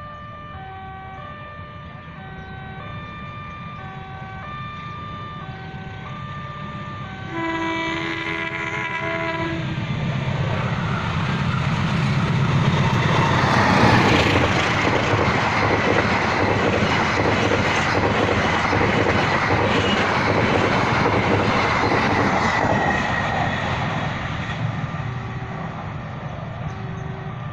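Level-crossing warning signal ringing in short repeated tones, then a passenger train sounds its multi-tone horn for about two seconds. The train passes with rising rail and wheel noise and a high squeal, loudest midway, then fades as the warning tones continue.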